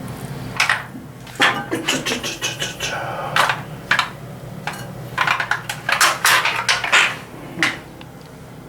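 Irregular metallic scraping and clattering in quick strokes, as a motorcycle cylinder head is scrubbed and handled during cleaning, over a steady low hum.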